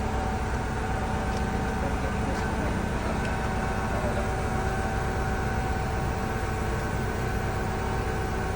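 A steady machine hum, like an engine or motor running at a constant speed, with a constant whine layered over a low drone and a few faint ticks in the first few seconds.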